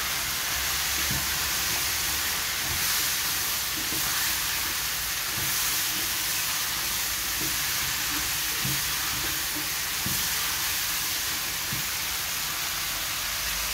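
Cubed bottle gourd (upo) sizzling steadily in hot oil in a wok while a spatula stirs it, with a few light scrapes and knocks of the spatula against the pan.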